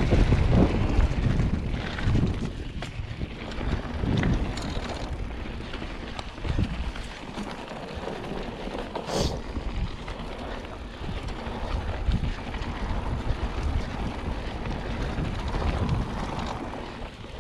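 Mountain bike riding a loose dirt trail: wind buffeting the microphone, tyre noise on the gravelly surface, and scattered knocks and rattles from the bike over bumps, with one sharper click about nine seconds in.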